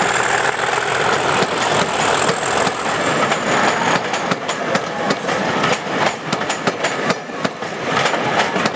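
A British Rail diesel locomotive pulling a passenger train away under power, its engine noise and a high whine fading over the first few seconds. After that the passing coaches' wheels click over the rail joints repeatedly.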